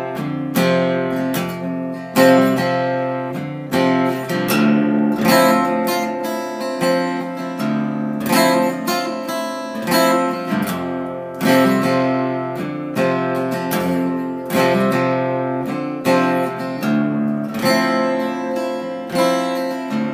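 Acoustic guitar strummed solo, chords ringing in a steady rhythm with a strong strum about every second and a half.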